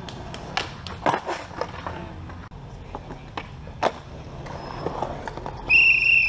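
Skateboard wheels rolling on concrete, with several sharp pops and slaps of the board as flatground tricks are attempted and landed. Near the end a loud, short, high whistle cuts in over the rolling.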